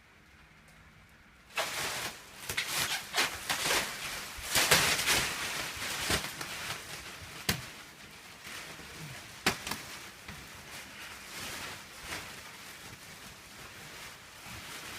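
Plastic wrapping being ripped open and pulled off a vacuum-packed foam mattress: loud crinkling and tearing with sharp snaps starting about a second and a half in, easing into lighter rustling after several seconds.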